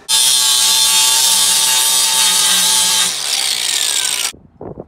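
Electric angle grinder running and grinding down the weld on a steel car shift lever, a loud hiss over a steady motor hum. About three seconds in the sound changes and its pitch falls as the grinder winds down, then it stops abruptly.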